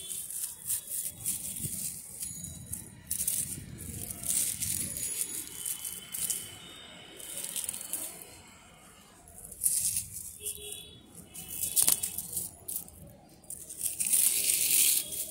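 Irregular rustling and crackling from leaves and handling as the camera is moved closely through leafy potted plants, with a few sharp clicks, and birds chirping on and off.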